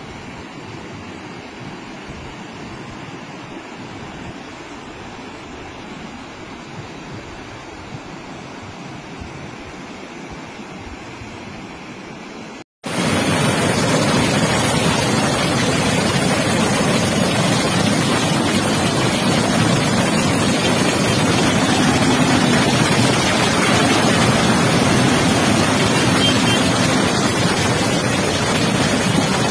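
Muddy floodwater of a flash flood rushing through a riverbed, a steady rushing noise. About 13 s in it cuts suddenly to a much louder, fuller rush of a swollen river in spate.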